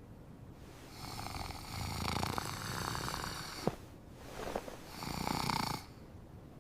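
Snoring: two long drawn-out snores, the first about three seconds long and the second about a second long.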